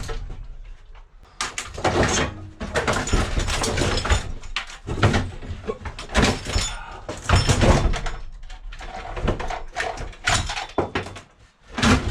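An uneven run of knocks, bangs and clatter, in clusters with short pauses between them.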